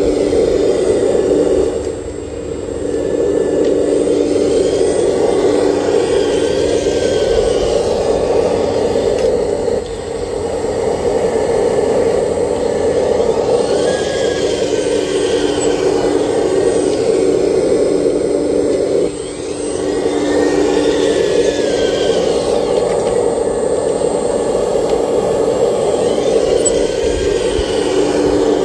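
Radio-controlled model excavator's motors running with a steady droning whine as it digs and swings loads of earth, dipping briefly three times.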